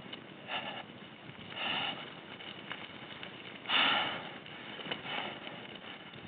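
A cyclist breathing hard while pedalling a heavily loaded bicycle slowly uphill, a breath about every second, the strongest about four seconds in, from the effort of hauling the load.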